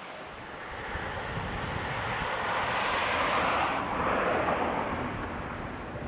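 A vehicle passing by: a broad rushing noise that swells to a peak about three to four seconds in, then fades away.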